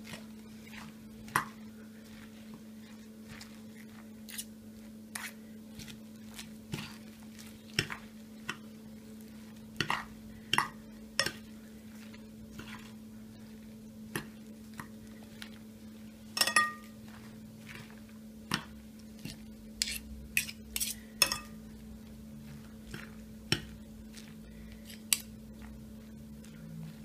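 Metal spoon and fork tossing dressed lettuce in a glass bowl: irregular clinks and scrapes of the utensils against the glass, some louder than others, over a steady low hum.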